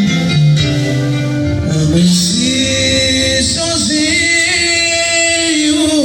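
A song playing, with a sung vocal melody over instrumental backing.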